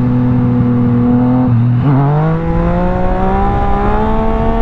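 Yamaha FZ-09 three-cylinder engine under throttle. Its note dips briefly about a second and a half in, then climbs steadily as the front wheel comes up into a wheelie, with wind rush on the helmet microphone.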